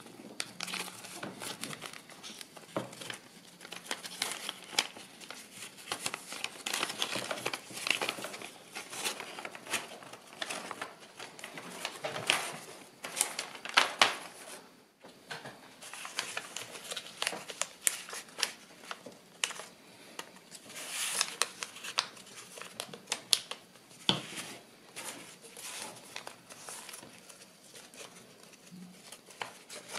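Kraft paper rustling and crackling as a concertina-folded strip is pulled open, pressed together and creased by hand, with many irregular sharp crackles; the loudest crackling comes about halfway through, followed by a brief lull.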